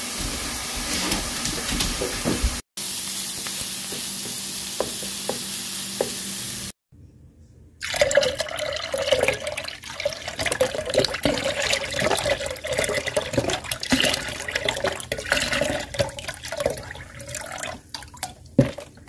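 Chicken broth pouring from a carton into a ceramic slow-cooker crock, a steady splashing pour starting about eight seconds in. Before it there is a steady background hiss, broken by a short silence.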